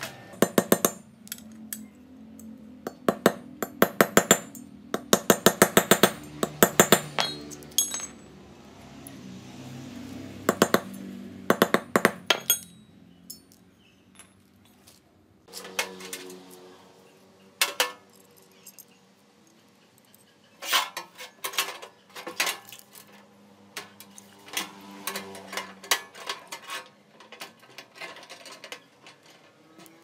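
Metal clinking and rapid tapping on steel rebar as it is worked, in quick bursts of sharp strikes separated by quieter pauses.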